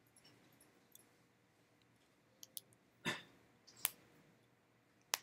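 A handful of short, faint clicks and taps over quiet room tone, scattered irregularly, with the sharpest ones about three, four and five seconds in.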